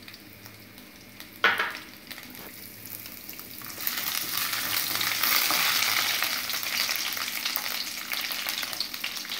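Small coconut pieces frying in ghee in a stainless steel kadai, stirred with a wooden spatula. A single sharp knock comes about one and a half seconds in. From about four seconds in the sizzle grows loud, with the scraping of the spatula through it.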